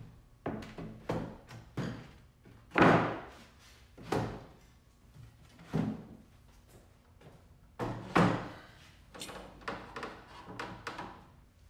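Wooden knocks and thuds of an MDF shelf panel being lowered and set into a 2x4 workbench frame, several separate impacts, the loudest about three seconds in and again about eight seconds in.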